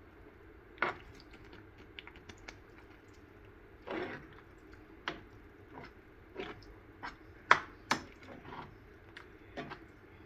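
Irregular soft knocks, clicks and plops from a pan of thick pav bhaji mash being cooked and worked on the stove, over a faint steady hum.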